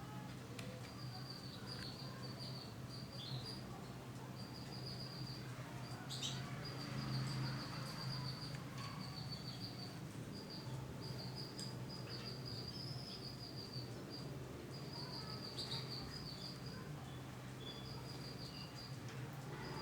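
High, rapid trilling chirps held at one steady pitch, repeated in bursts of about half a second to a second and a half, with a few short clicks over a steady low hum.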